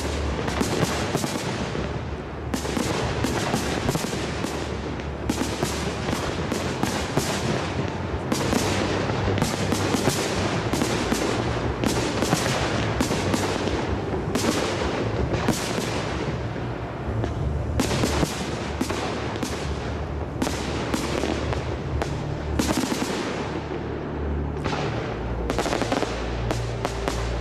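Large fireworks display firing a rapid, continuous barrage of bangs and crackles, several a second without a pause.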